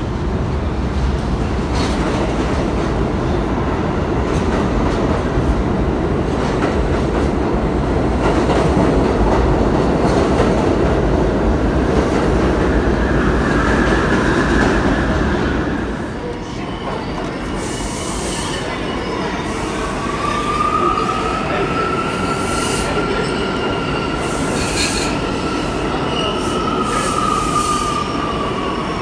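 Subway train of stainless-steel cars running past the platform with a loud, steady rumble that drops off about halfway through. From about two-thirds of the way in, the wheels give a long high squeal that sags slightly in pitch near the end, with hissing squeaks around it.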